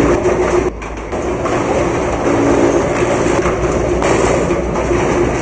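Henequen (sisal) decorticating machine running: a steady mechanical hum with clattering from its rasping drum, gears and chain conveyor as leaves are fed through and stripped to fibre. It dips briefly quieter about a second in.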